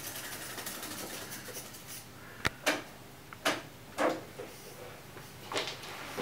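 Buttons and transport keys clicking and clunking as they are pressed on studio recording gear, including a TASCAM reel-to-reel tape machine. The first two seconds hold faint rustling, then come about five sharp clunks at uneven intervals.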